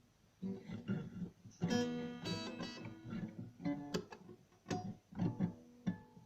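Acoustic guitar played unevenly: single plucked notes and strummed chords, each ringing and fading, with irregular gaps between them.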